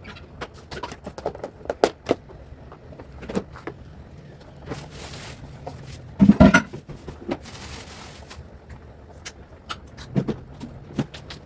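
Handling noise: scattered clicks and knocks with brief rustling, and a louder cluster of thumps about six seconds in.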